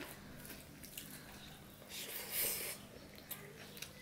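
Fingers mixing polao rice on a steel plate: soft squishy rustling with a few small clicks, and a louder hissy swell about two seconds in.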